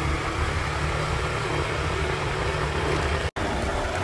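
Small rented motorbike's engine running steadily while riding, over a steady rush of wind and road noise; the sound drops out for an instant about three seconds in.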